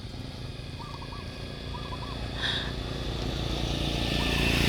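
A motor vehicle approaching along the road, its engine growing steadily louder toward the end, with faint bird chirps in the background.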